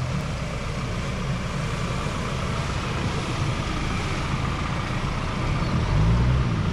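A vehicle engine idling steadily, a low rumble that swells slightly about six seconds in.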